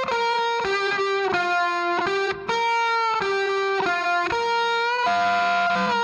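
Background music: a solo melody of held notes, played one after another with no drums, on what sounds like a guitar.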